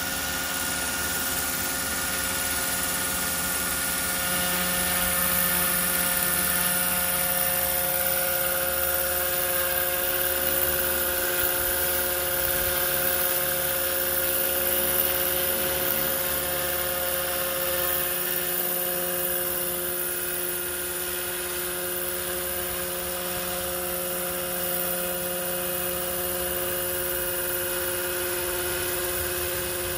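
Roban EC145 800-size scale RC helicopter running with its main and tail rotors spinning as it lifts off the grass into a low hover. Its drive gives a steady whine of several even tones, a little louder in the first half.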